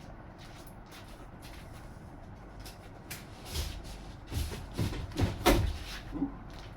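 A tight cardboard lid being pulled and worked off a large box, with a series of scraping, rubbing pulls and low thumps starting a little past halfway, loudest near the end; the lid is sticking.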